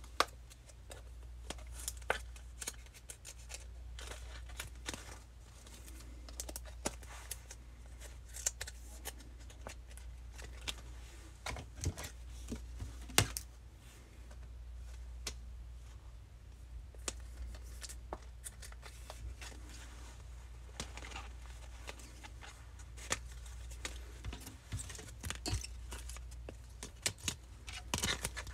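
Trading cards being handled and slipped into plastic penny sleeves and rigid top loaders: scattered small clicks, taps and short plastic rustles at irregular intervals, over a low steady hum.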